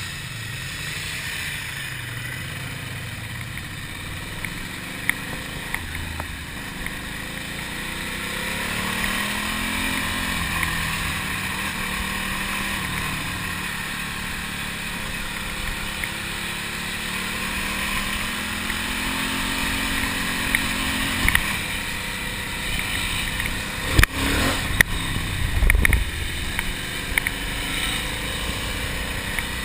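Ducati Monster's air-cooled L-twin engine running under way, its pitch slowly rising and falling with road speed, over wind rush on the microphone. A few sharp knocks and a thump near the end.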